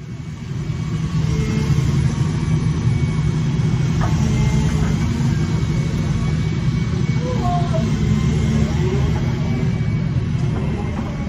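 Heavy diesel engine running steadily with a low rumble, from the grab machine working its scrap claw just above.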